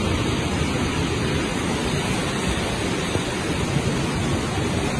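Fast-flowing muddy floodwater rushing past, a steady unbroken rushing noise.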